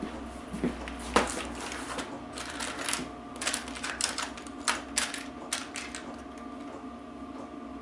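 Small washers and parts clicking and clinking as they are sorted through by hand in a parts box, irregular light clicks with a few sharper clinks, over a steady background hum.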